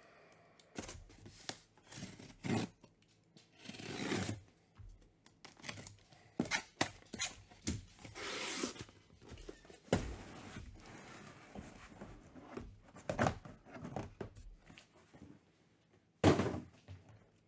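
A taped cardboard shipping case being opened by hand: packing tape slit and ripped, cardboard flaps torn back, and the sealed card boxes inside slid out and handled, with two longer ripping noises in the first half. A loud thump near the end as a box is set down.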